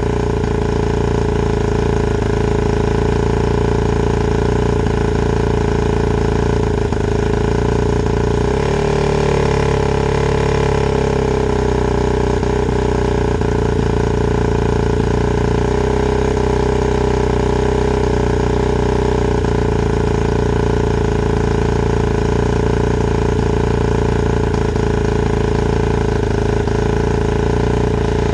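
A 1986 Yamaha 90 hp two-stroke outboard motor idling steadily out of the water, warming up on regular gas before Sea Foam is run through it. The engine note shifts briefly about nine seconds in, then settles again.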